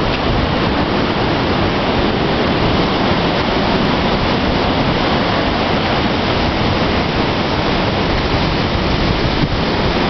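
Strong wind buffeting the microphone and rushing through leafy trees: a loud, steady rush of noise with a heavy low rumble.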